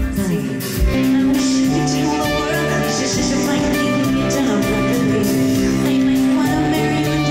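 A live rock band playing, with a woman singing over electric and acoustic guitars, bass and drums. About a second in, the sound switches to a recording through a Canon DM-100 camera microphone with automatic gain control: the kick-drum thumps drop away and the loudness goes flat and even, with smashed dynamics.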